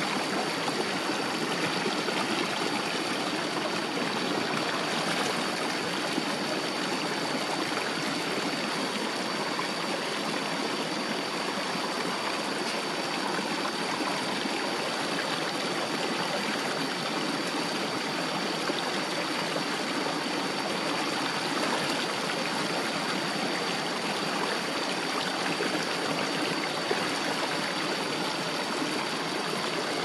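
Small stream cascading over rocks and splashing into a wire-mesh basket fish trap, a steady, unbroken rush of water. A thin, steady high tone sits above it.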